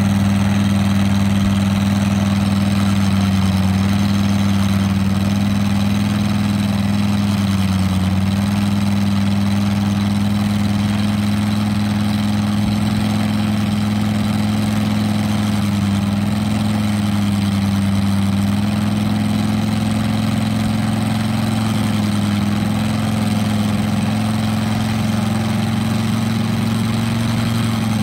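Large-scale RC model aircraft engine running at a steady speed, its pitch wavering only slightly.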